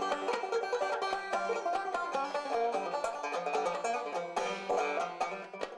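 Five-string resonator banjo picked in a fast, bright run of notes.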